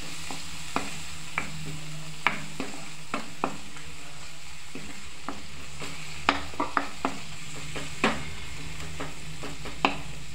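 Wooden spatula stirring and scraping a tomato, green chilli and spice masala frying in ghee in a frying pan: a steady sizzle with irregular sharp knocks of the spatula against the pan. The spices are being fried (bhuna) until the masala is no longer raw.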